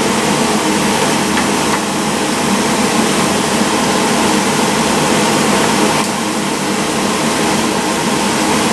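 A fan running steadily, with meat and vegetables sizzling on an electric grill plate as they are stirred.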